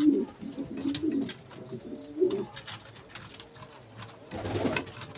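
Domestic pigeons cooing in a loft: low, warbling coos, with a short rustle near the end.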